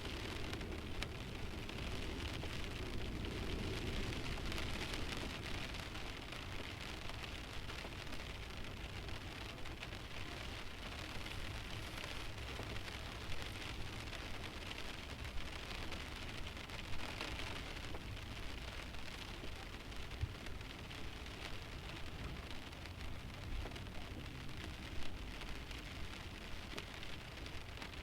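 Light rain pattering steadily on a stationary car's windshield, heard from inside the car, with a few louder single drops hitting the glass.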